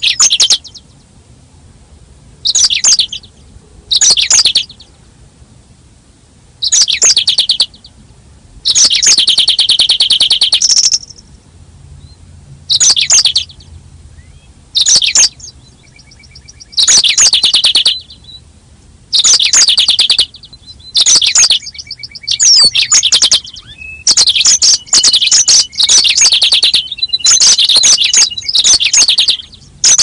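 Yellow-fronted canary (Mozambique canary) singing: short bursts of rapid, high twittering trills, one every second or two. There is a longer phrase about ten seconds in, and the phrases come closer together in the last few seconds.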